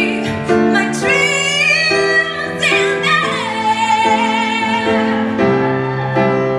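A woman singing solo into a microphone over sustained keyboard chords, holding a long note with vibrato in the middle before the phrase ends.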